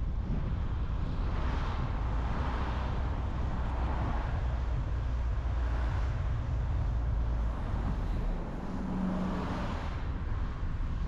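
Car driving on a highway: a steady low road rumble with tyre hiss that swells and fades several times. A brief low hum comes in about nine seconds in.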